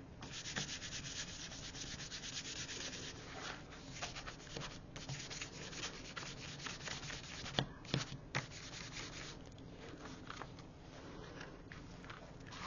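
Hands rubbing thick patterned paper flat against a cutting mat, making a fast run of faint brushing strokes as the freshly glued sheet is smoothed down. Three light knocks come about eight seconds in.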